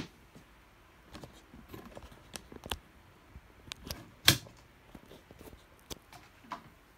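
Handling noise: irregular light clicks and taps, with one sharper knock about four seconds in.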